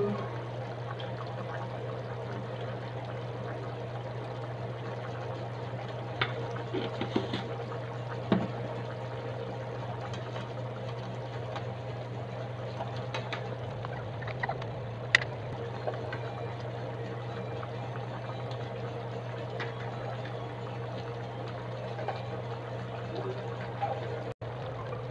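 Pork pochero simmering in a frying pan, its broth bubbling steadily over a constant low hum, with a few sharp clicks of a spatula against the pan.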